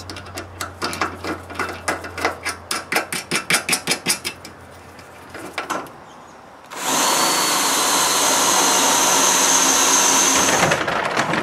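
Cordless drill driving a screw into a steel door rail, running steadily with a thin high motor whine for about four seconds, starting about seven seconds in. Before it, a quick run of clicks, about five a second, as a bolt is tightened by hand.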